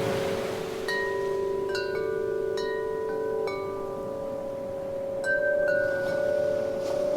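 Wind chime struck about seven times in a loose, irregular rhythm, each clear bright note ringing on and overlapping the others over a sustained lower hum of earlier notes.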